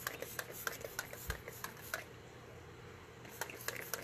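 Makeup setting spray pump bottle spritzed at the face: a run of short hissing spritzes, a lull of about a second, then a few more near the end.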